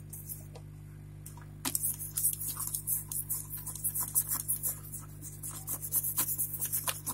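Freshly soldered joints on a router circuit board being scrubbed clean: quick, irregular scratchy strokes that start about a second and a half in, over a steady low hum.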